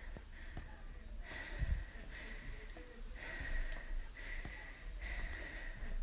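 A person breathing quickly in and out, about one breath a second, each breath a short hiss, with a few faint taps underneath.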